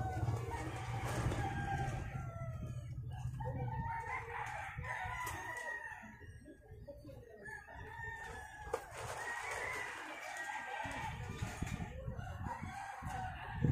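Roosters crowing over and over, several calls overlapping, with a short lull around the middle.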